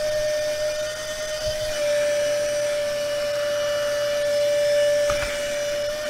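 Honk H0431 cordless mini vacuum cleaner's small motor running with a steady high whine and rushing air. Its pitch dips slightly a little under two seconds in.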